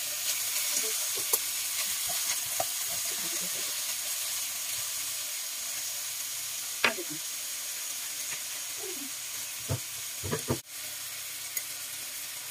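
Sliced bitter gourd sizzling as it stir-fries in a stainless steel wok, a steady hiss throughout. Now and then the spatula knocks and scrapes against the pan, with short clanks about seven seconds in and a quick cluster around ten seconds in.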